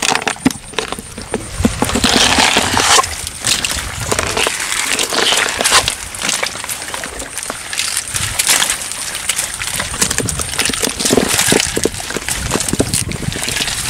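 Busy, irregular clicks and knocks with water noise as bare hands grope in shallow water to grab a snakehead fish.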